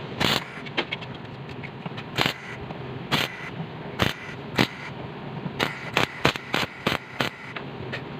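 About a dozen sharp, uneven hammer blows on the sheet-metal body of a Suzuki Carry, roughly one every half second with short pauses, as the dented panel and its crease line are knocked back into shape.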